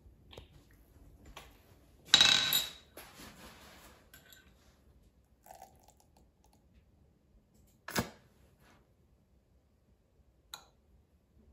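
Sriracha squeezed from its plastic bottle into a metal measuring spoon, with a short sputtering hiss about two seconds in, then a single sharp tap of the spoon against a glass measuring cup about eight seconds in. Soft handling sounds lie between.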